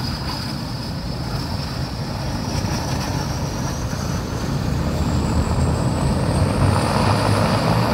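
Air Tractor AT-802 spray plane's turboprop engine running on the ground: a steady propeller drone under a high turbine whine that climbs in pitch throughout as the engine speeds up. It grows a little louder toward the end.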